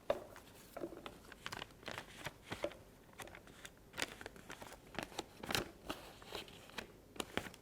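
Paper crinkling and rustling as it is handled, in many short, irregular crackles and light taps.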